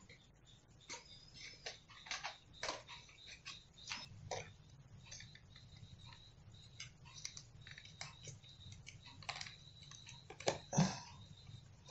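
Light, irregular clicks and rustles of plastic ball pens and cardboard pen boxes being handled during hand packing, with one louder thump near the end.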